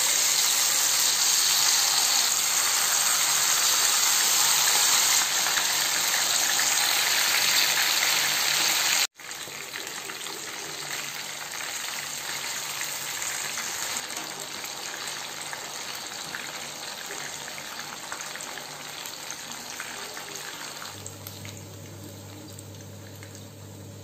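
Masala-coated quail pieces frying in hot oil in a frying pan: a loud, steady sizzle. After a sudden break about nine seconds in, the sizzling goes on quieter and slowly dies down.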